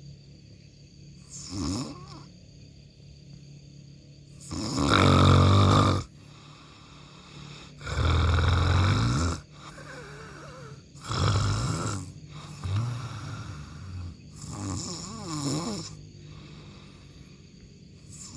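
A person snoring: a run of about seven snores, each half a second to a second and a half long, at uneven intervals. The two loudest come about five and eight seconds in.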